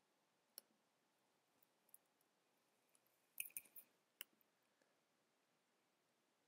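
Faint computer mouse clicks against near silence: a single click about half a second in, a quick run of several clicks around three and a half seconds, and one more just after four seconds.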